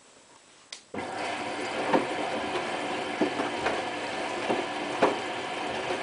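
Hotpoint Ultima WT960 washing machine starting a tumble about a second in: a click, then the drum motor running, with water sloshing and the wet load thudding in the turning drum several times.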